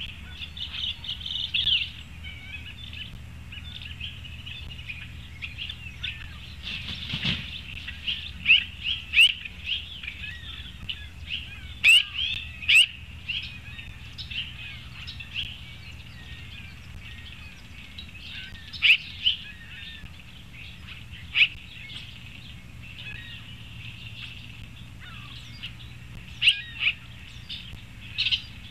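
Small songbirds chirping and calling steadily, with a scatter of louder, sharp chirps standing out now and then, over a low steady hum.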